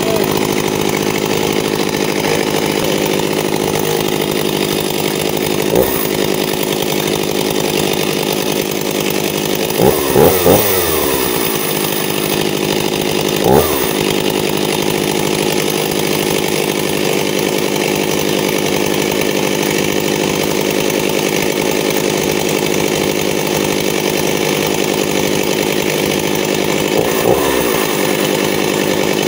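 Stihl chainsaw idling steadily while being run to test its chain brake, which has a makeshift replacement spring. Short throttle revs come about six seconds in, three in quick succession around ten seconds, one near fourteen seconds and one near the end.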